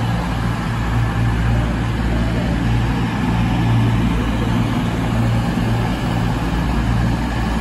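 Two coupled CrossCountry Voyager diesel multiple units moving past, their underfloor diesel engines running with a loud, steady drone and a deep hum.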